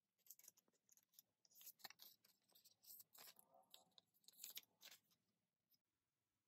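Faint rustling and light clicking of plastic card sleeves as photocards are handled and slipped into binder pages, dying away about five seconds in.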